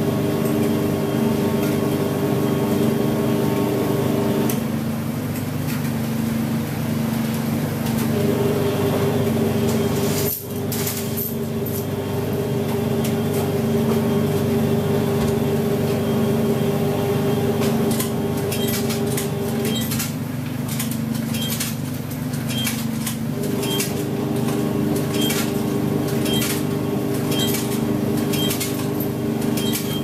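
IPSO 25 lb commercial front-loading washing machine on a hot wash, its drum motor humming steadily as the drum turns the load in soapy water. The hum dips briefly about ten seconds in, and a light regular tick sounds about once a second through the second half.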